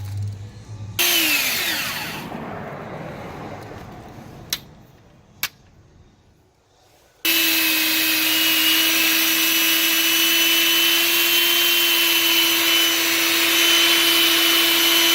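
Hilti DD 150-U diamond core drill: about a second in its motor sounds loudly and then winds down with falling pitch, followed by two sharp clicks. After a brief near-quiet pause it starts abruptly and runs steadily with a constant whine.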